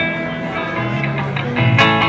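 Live rock band playing: electric guitars holding ringing chords over a bass guitar line that moves between low notes, with a strummed chord struck near the end.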